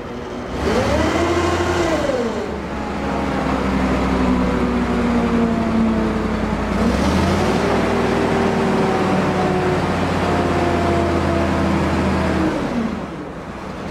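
Mobile crane's engine revving to drive the hoist as it lifts a bundle of tires: a short rev up and back down, then a second rev held for about six seconds before dropping back to idle near the end.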